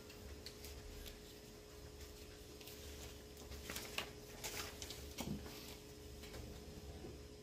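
Faint, irregular clicks and taps of a computer mouse and keyboard being worked, thickest about four seconds in, over a low steady hum.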